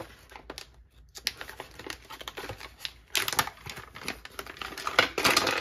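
Paper tool-kit pouch being torn open and crinkled by hand: scattered small crackles and rips, with louder rustling bursts about three seconds in and again near the end.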